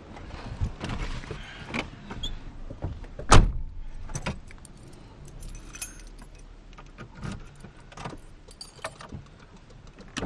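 Keys jangling with scattered clicks and knocks, and one loud thump about three and a half seconds in. No engine is running.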